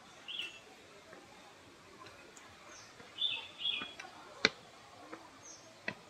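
Birds chirping in short, high calls with a few faint falling whistles. There is a sharp click about two-thirds of the way in, and a softer one near the end.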